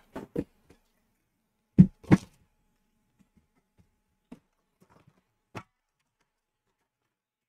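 Metal trading-card tin being opened: a few short knocks and clacks of the metal lid, the loudest pair about two seconds in, then a couple of faint taps.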